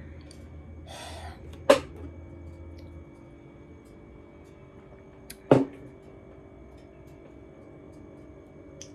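A glass coffee cup knocking against a tabletop twice, about four seconds apart. Each knock is sharp and loud and leaves a short glassy ring.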